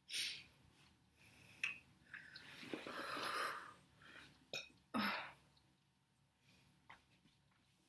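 A woman's short burps and breath sounds after drinking a lot of cola: a sharp burst at the start, a longer, breathier one in the middle, and another sharp one about five seconds in.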